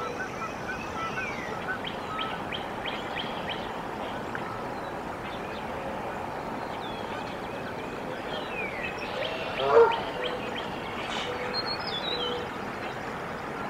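Outdoor ambience at a Canada goose nest, with birds chirping. A short, louder call comes about ten seconds in.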